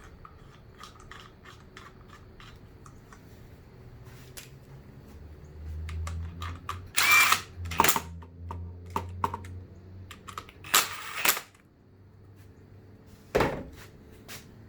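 Cordless drill-driver driving a screw back in, its motor running for about five seconds in the middle, with sharp clicks and clatter of handled parts around it.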